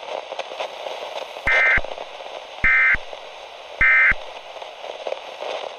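Emergency Alert System end-of-message signal: three identical short bursts of SAME digital data tones, about a second apart, marking the close of the alert. Faint steady noise lies underneath.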